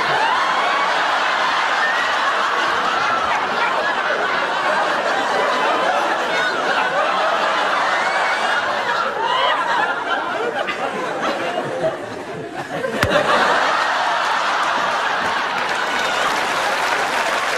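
A studio audience laughing continuously, dipping briefly near the two-thirds mark and swelling again after a single sharp click.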